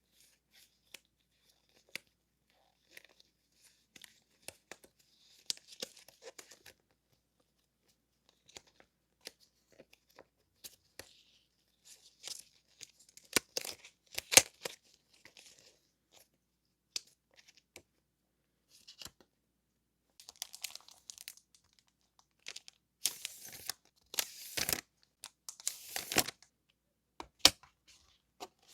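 Paper and plastic stationery packaging handled close up: scattered light taps and rustles, with louder crinkling and tearing in short stretches around the middle and more continuously near the end.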